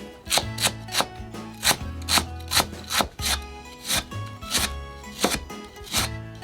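Santoku knife chopping on a cutting board: quick, uneven strikes, two to three a second, over background music.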